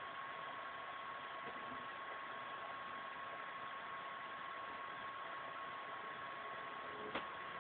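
Steady hiss of recording noise with a faint steady high tone: quiet room tone. One faint click about seven seconds in.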